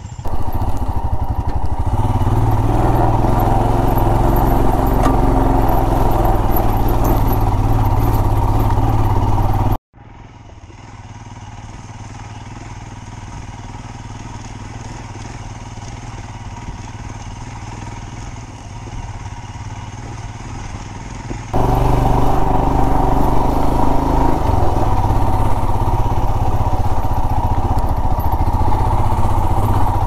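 Motorcycle engine running while the bike rides a rough dirt track, heard from the rider's seat. The sound drops out abruptly about a third of the way in, continues quieter, then comes back loud just as suddenly near two-thirds of the way through.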